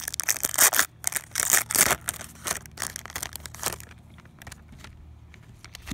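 Foil-lined hockey card pack wrapper being torn open and crinkled, with loud crackling in the first two seconds. The crinkling then tapers into lighter rustling, and there are a few faint clicks as the cards are handled.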